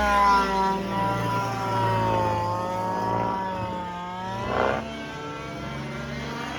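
Miniature Aircraft Spectra gas RC helicopter in flight: its 27cc two-stroke engine with a small Zimmerman tuned pipe running steadily, the pitch drifting up and down as it manoeuvres, with a brief swell about four and a half seconds in.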